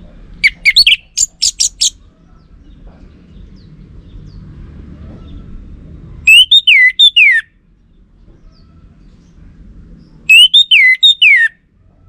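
Orange-headed thrush singing three phrases: a quick run of short chirps near the start, then two phrases of slurred whistles falling in pitch, about six and ten seconds in.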